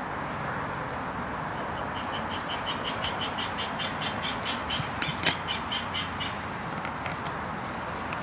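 A bird calling a rapid, even series of short high notes, about four or five a second, for several seconds over steady outdoor background noise, with one sharp click about five seconds in.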